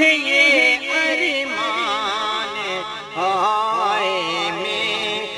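A single voice singing a naat, a devotional Urdu song about Madina, drawing out a long melismatic line that wavers and turns in pitch with heavy vibrato.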